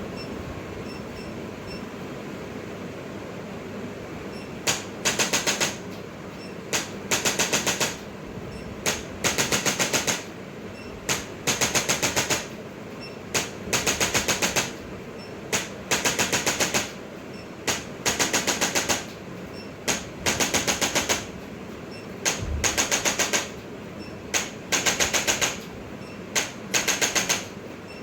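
Bursts of rapid mechanical clicking, repeating about every two seconds from about five seconds in. Each burst is one sharp click followed by a quick train of clicks, over a steady fan-like hum.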